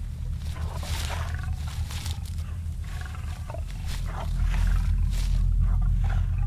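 A deep, low growling rumble, a creature's roar in the film's sound design, swelling louder about four seconds in. Over it comes heavy breathing, about one breath a second.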